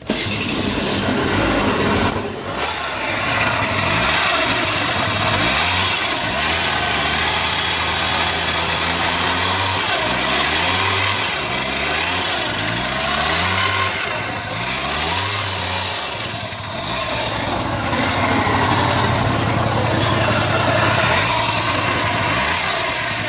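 Daelim Message 50 cc scooter engine catching abruptly and running, with a run of quick revs up and down in the middle and steadier running either side.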